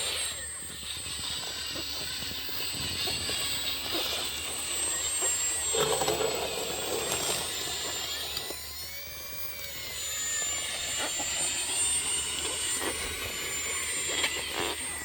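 Electric motors and drive gear of 1/14-scale RC construction machines whining steadily, with small clicks. About nine seconds in, a second whine rises and falls in pitch, as a motor speeds up and slows down.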